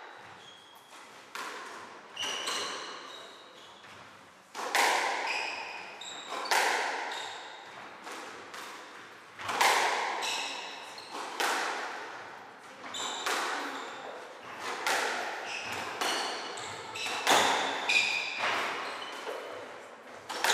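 A squash rally: the ball is struck by rackets and cracks off the walls about once every one to two seconds, each hit echoing round the court. Short high squeaks of court shoes on the wooden floor come between the hits.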